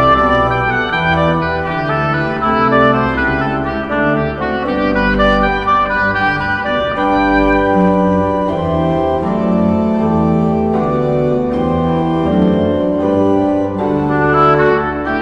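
Instrumental background music: held chords that change every second or so, with no singing.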